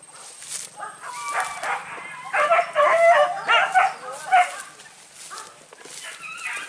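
Several hunting dogs yelping and barking at once, a busy overlapping chorus that is loudest about halfway through, then fades to scattered yips.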